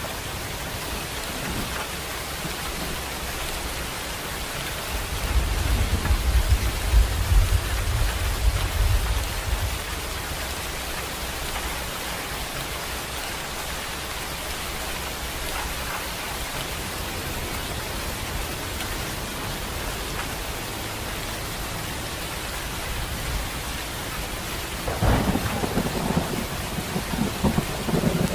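Steady rain with thunder: a deep rolling rumble about five seconds in that lasts several seconds, then a sharper thunderclap near the end that rumbles on.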